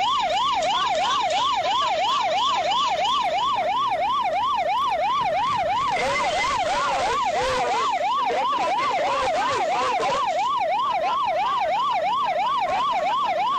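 Police car siren in a fast up-and-down wail, about three sweeps a second, sounding steadily from the pursuing patrol car. A rushing noise rises under it for a few seconds in the middle.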